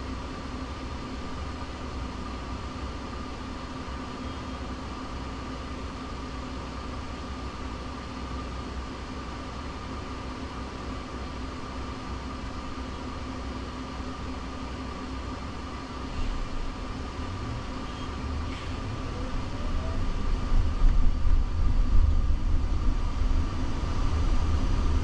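Inside the cabin of a Jaguar I-PACE electric car: a steady hum while the car stands still, then from about sixteen seconds in a low road rumble builds and grows louder as the car pulls away, with a faint rising whine partway through.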